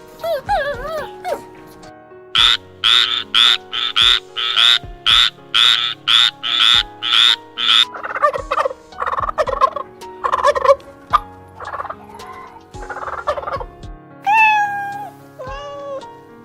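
Farm fowl calling: a run of about a dozen loud calls, roughly two a second, then rougher calls and a few drawn-out falling cries near the end, over background music.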